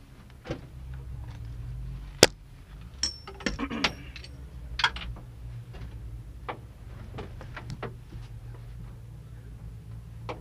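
Scattered sharp clicks and a brief jangle, the loudest click about two seconds in, over a low steady hum.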